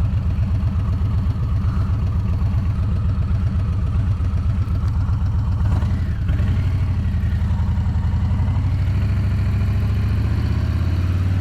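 Motorcycle engine running at low speed, a steady low pulsing exhaust note heard through a helmet microphone; the note dips and shifts about six seconds in, as with a throttle or gear change.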